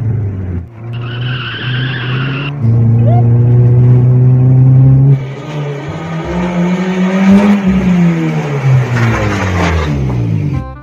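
Car engine held at steady high revs, with a tyre squeal from about one second in to about two and a half seconds. From about five seconds in the engine note climbs and then falls away amid skidding tyre noise, and the sound cuts off suddenly near the end.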